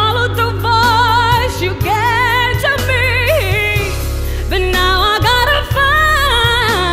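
Background pop song: a woman singing held notes with a wide vibrato over instrumental backing with a steady bass.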